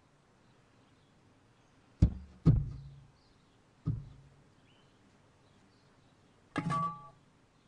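A few sharp knocks: two close together about two seconds in, another near four seconds, and a longer rattling knock with a brief ringing tone near the end.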